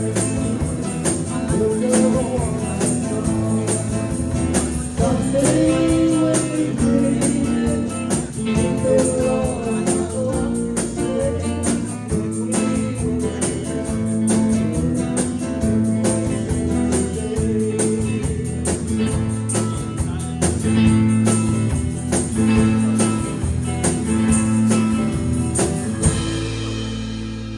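Live band playing an instrumental passage, with guitar, bass and a steady tambourine beat, some singing over it. Near the end the band stops on one chord that rings on and fades out.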